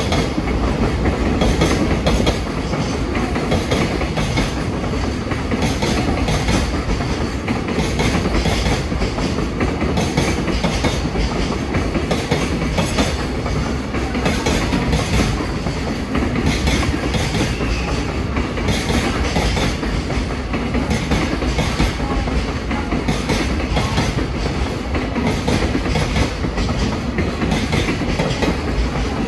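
A JR Freight container train of Koki container wagons rolling past at steady speed, its wheels clacking in a rhythm over the rail joints over a continuous rumble.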